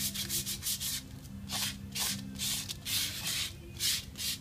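Quick back-and-forth rubbing strokes of a piece of flimsy cardboard over dried patching plaster on a wall, about two to three scrapes a second, smoothing the patch.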